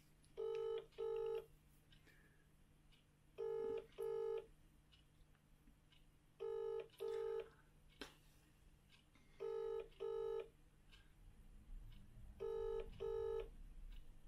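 Mobile phone on speaker playing a British-style double ringback tone, 'ring-ring' pairs repeating five times about every three seconds: an outgoing call ringing with no answer.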